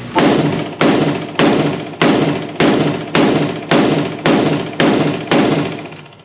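Springfield Hellion semi-automatic 5.56 bullpup rifle fired in a steady string of about ten shots, roughly two a second. Each shot is followed by a ringing echo.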